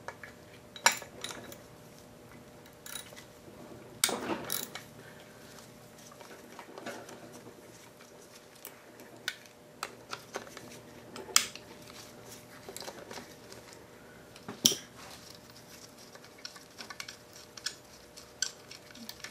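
Irregular metallic clicks and clinks of a socket ratchet and steel bolts being worked on an old Tecumseh small-engine crankcase, with a few louder clanks of tools and parts against metal.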